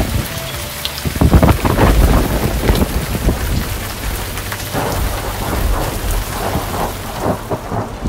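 Thunderstorm: rain falling steadily, with low rumbling thunder that is loudest one to three seconds in and swells again later.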